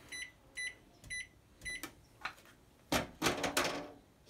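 Microwave oven keypad beeping four times, one short beep for each key press, as its kitchen timer is set. About three seconds in comes a brief, louder clatter of handling noise.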